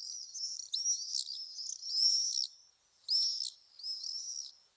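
High-pitched bird chirping, in about five quick bursts of twittering calls with short pauses between them.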